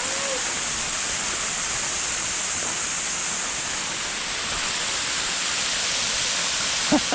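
Waterfall rushing close by, a steady, unbroken wash of falling water.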